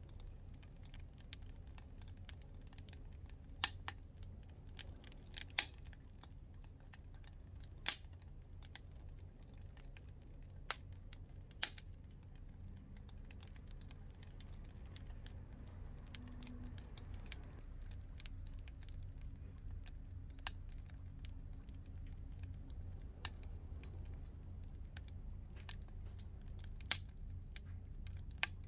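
Wood fire crackling in a homemade double-combustion (secondary-burn) fire pit, with sharp irregular pops every few seconds over a low steady rumble.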